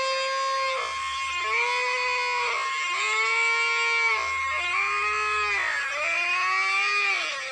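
Cartoon character's voice wailing in about five long drawn-out cries, each rising and then falling in pitch, over a steady high tone.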